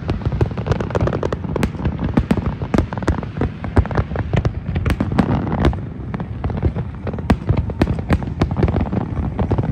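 Large fireworks display: aerial shells bursting in a dense, continuous run of bangs, several a second, over a low rumble.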